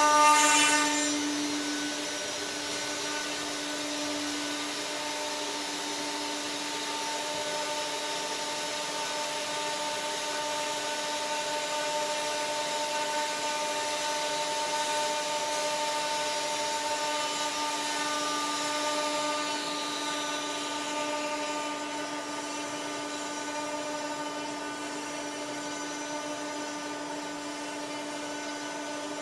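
CNC router spindle milling wood, loud for about the first second, then settling into a steady machine whine with several held tones. A faint tone slides downward about two-thirds of the way through.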